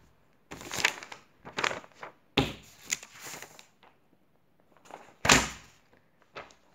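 Loose sheets of printed paper rustling and flapping as they are picked up and shaken, in several separate bursts mixed with dull thumps of handling. The loudest comes about five seconds in.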